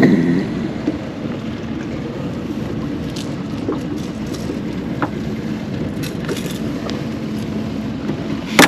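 Steady low drone of a small fishing boat's outboard motor at idle, with a few light clicks through the middle and a sharp knock just before the end.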